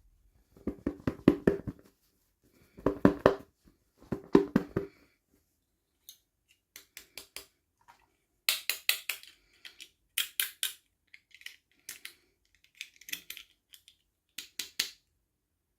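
Plastic toy packaging being handled and crinkled in short bursts of crackling clicks: three fuller, lower bursts in the first five seconds, then thinner, sharper crackles every second or two.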